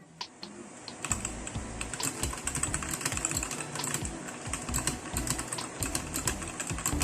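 Fast, continuous typing on a 60% computer keyboard: a dense, irregular stream of key clicks that starts about a second in.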